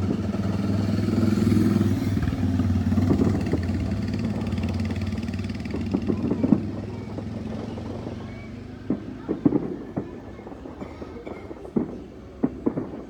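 A motor engine running steadily and then fading away. Several sharp firework bangs sound about six seconds in, again around nine to ten seconds, and twice near the end.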